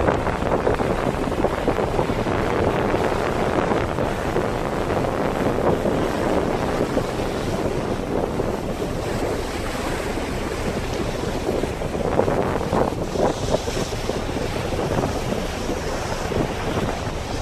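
Wind buffeting the microphone over rushing water from a boat underway, a steady noise with no engine tone, with a few stronger gusts about two-thirds of the way through.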